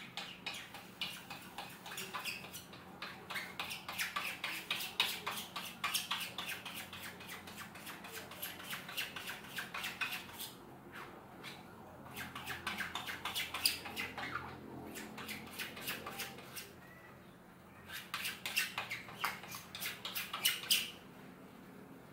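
A small squeegee rubbed quickly back and forth over silk-screen mesh on an aluminum frame, working frame adhesive through the mesh. It makes a rapid run of scraping strokes, several a second, in three spells, with short pauses about halfway through and near the end.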